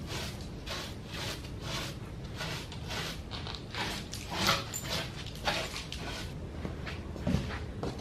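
Stiff-bristled hand brush scrubbing dirt off the glass panes of an old multi-pane window, in quick strokes about two to three a second. There is a thump near the end.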